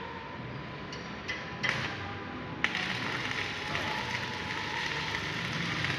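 Metalwork shop noise: a steady mechanical hiss with a few sharp metallic knocks in the first half, then a louder knock about two and a half seconds in, after which the noise turns brighter and hissier.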